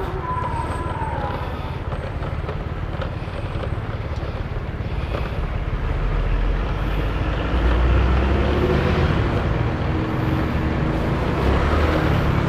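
ALS 081 intercity bus engine and exhaust rumbling with a deep, snore-like exhaust note. It grows louder about six seconds in and is loudest around eight seconds.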